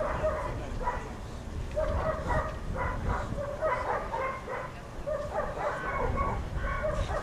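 A dog barking and yelping repeatedly in quick runs of short calls, over a gusty low rumble of wind on the microphone.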